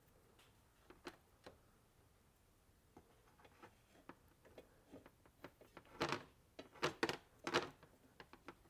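Faint rubbing and soft clicks of a recoil starter pull rope being worked into a knot by hand, with a few louder rubs near the end.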